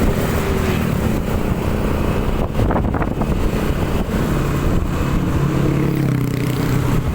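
Road traffic close by: vehicle engines and tyre noise, with a deep engine drone that grows stronger near the end.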